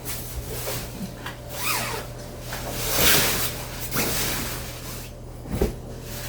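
Bed linen rustling as it is handled and spread, in irregular swells, with a short knock near the end.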